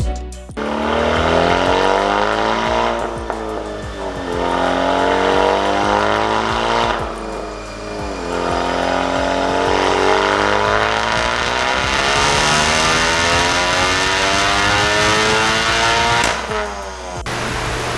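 Honda Civic Type R's 2.0-litre turbocharged four-cylinder on a chassis dyno, breathing through a high-flow-cat RV6 downpipe and Remus exhaust. The revs climb and fall back twice, then rise in one long dyno pull that cuts off suddenly near the end, leaving a steady low hum.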